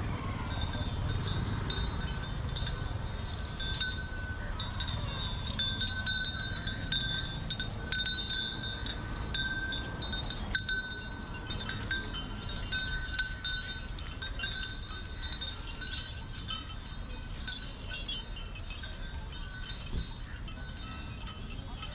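Street ambience as caparisoned Asian elephants walk past in a procession line, with a high, steady-pitched ringing that comes and goes in short pulses through most of it and fades near the end.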